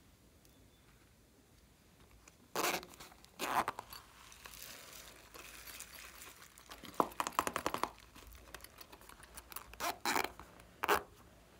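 A plastic avocado-shaped container being handled and its contents scraped out with fingers, giving sharp crinkling and scraping noises. There are two louder bursts a few seconds in, crackling with a quick run of clicks in the middle, and two more bursts near the end.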